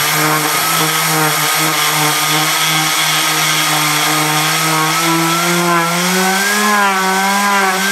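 Compressed-air turbine spinning a small 6-volt DC motor as a generator: a steady hum and whine over the hiss of the air jet. The pitch wavers and climbs slightly about five seconds in. The motor's load and a coupler that is not quite balanced keep the turbine from revving up, so the motor puts out only about a volt.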